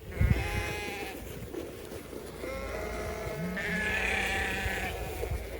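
Sheep bleating several times, the longest bleat near the end, over a low rumble.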